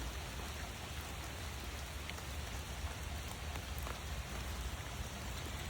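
Steady outdoor background hiss with a low rumble and a few faint ticks.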